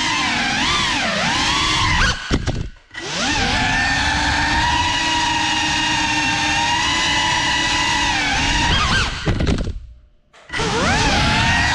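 Brushless motors and propellers of a ducted 3.5-inch FPV cinewhoop, a high whine whose pitch rises and falls with the throttle. Twice, about two and a half and ten seconds in, the whine winds down almost to nothing as the throttle is cut, then spools straight back up.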